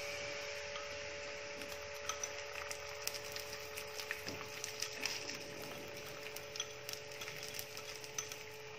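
Thin batter sizzling in a hot oiled non-stick pan, with scattered light clicks of a wire whisk against the pan and bowl over a steady low hum.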